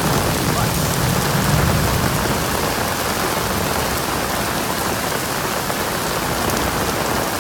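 Heavy rain pouring steadily onto pavement and road in a downpour, with a low rumble fading out over the first two seconds.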